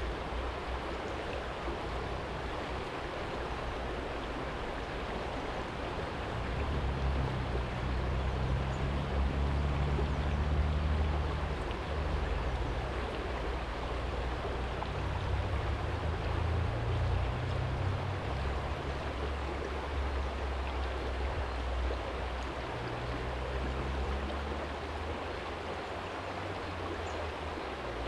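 Small shallow stream flowing steadily over a stony bed. Under it a low rumble swells and fades a couple of times.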